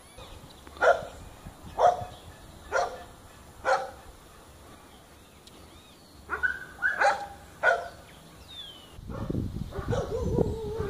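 A dog barking: four barks about a second apart, then a quicker run of about five barks a few seconds later. Near the end a low rumbling noise comes in.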